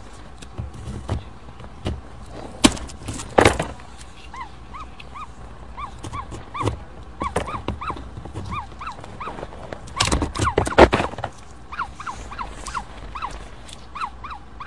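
Ostrich chick peeping over and over from inside its opened egg: short, rising-and-falling squeaks, several a second at times. A few loud sharp clicks cut in, about three seconds in and again around ten to eleven seconds, as the shell is handled with scissors.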